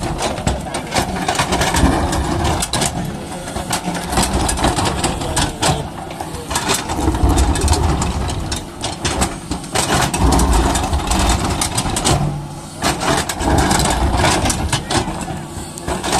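Excavator's diesel engine running under load, with frequent sharp knocks and clatter as it works.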